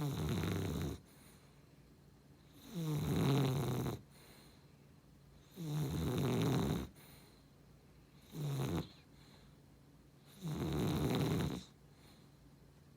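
A beagle–Cavalier King Charles Spaniel mix dog snoring in its sleep: five snores, each about a second long, one every two to three seconds.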